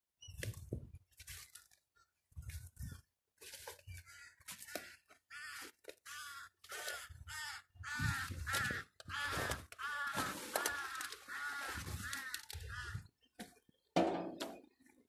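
A crow cawing repeatedly, about nine harsh calls in quick succession in the second half, over intermittent rustling and low bumps from the phone being carried through the crop. A louder burst comes near the end.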